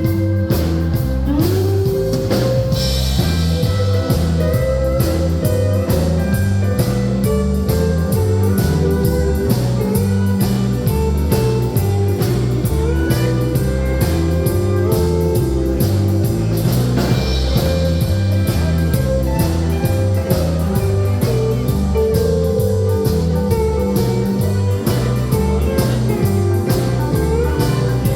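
Live country band playing an instrumental break: guitar lines over a bass that steps from note to note and a drum kit.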